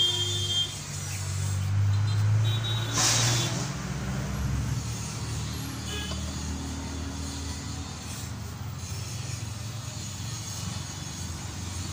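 A steady low drone of a running vehicle engine. Over it come a few light metallic clinks and a short scrape as a new cylinder liner is seated in the engine block and a steel plate is set on top of it.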